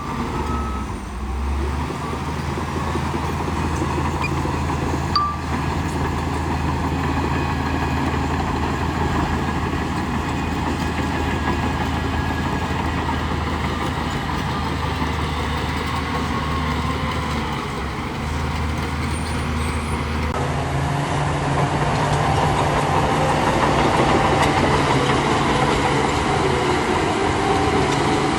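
Heavy diesel engine of earthmoving machinery running steadily under work, with a low engine drone; the engine note changes about two-thirds of the way through.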